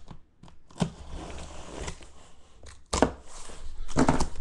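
A knife slitting the packing tape along the seam of a cardboard case, a faint scraping cut, with a few sharp knocks about a second in, about three seconds in and near the end.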